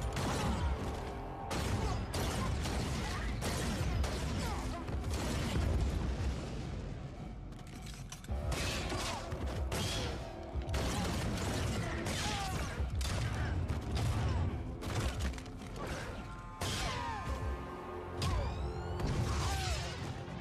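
Film battle sound effects: a dense run of hits, clatters and blaster shots over background score music.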